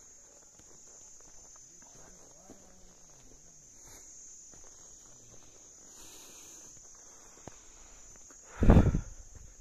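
Steady, high-pitched buzzing of insects in the forest. Near the end there is one loud, low thud lasting under a second.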